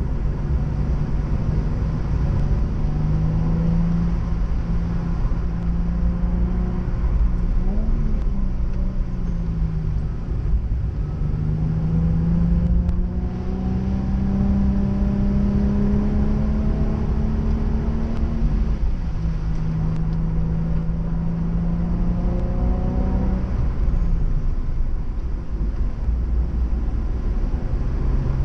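Nissan 350Z's 3.5-litre V6 engine pulling hard on track. Its note climbs steadily, then drops back several times as the driver shifts or lifts off, over a heavy low rumble.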